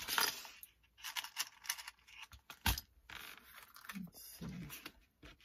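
Small metal eyelets clicking and rattling as they are picked out of a plastic compartment box and dropped onto a cutting mat, with paper card tags scraped and shuffled. One sharper click about two and a half seconds in.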